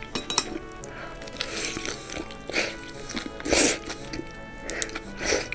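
Eating sounds: a few sharp clicks early on, then noisy mouth sounds of a mouthful of dashi-simmered cabbage and pork belly being taken in and chewed, the loudest about three and a half seconds in. Background music with sustained notes runs underneath.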